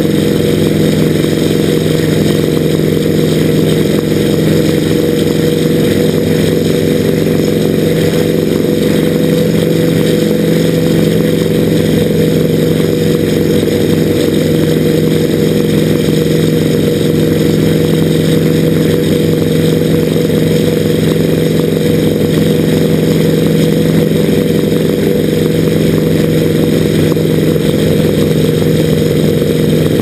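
Sikorsky S-58C helicopter's engine and rotor running steadily in flight, close up from a camera mounted on the aircraft, as it carries an HVAC unit slung on a long line.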